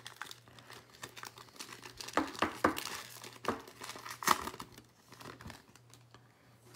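Foil wrapper of a basketball trading-card pack crinkling and tearing as it is ripped open by hand, in short crackles that thin out in the last couple of seconds.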